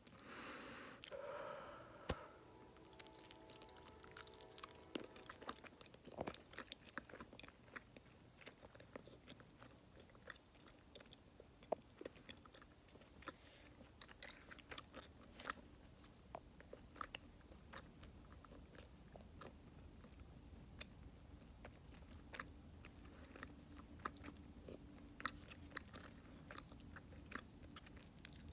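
Faint close-up chewing of bubble gum, with irregular wet clicks and smacks of the mouth. A single sharp pop about two seconds in is a blown gum bubble bursting.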